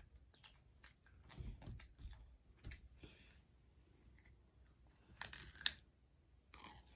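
Near silence with a few faint, scattered clicks and taps, the loudest cluster about five and a half seconds in.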